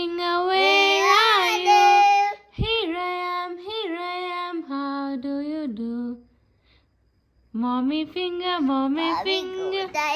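A toddler singing a nursery rhyme in a high voice, in short sung phrases, breaking off for about a second and a half a little past halfway and then starting again.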